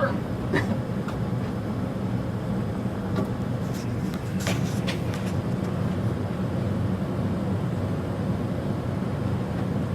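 Steady low hum of gas-fired water heaters and a furnace running during a draft test, with a few faint clicks about half a second in and around four and a half seconds in.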